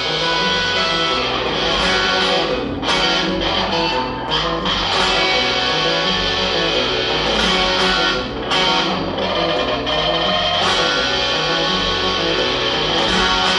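Live rock band playing an instrumental passage, led by electric guitar over bass, with sharp percussive hits every second or two.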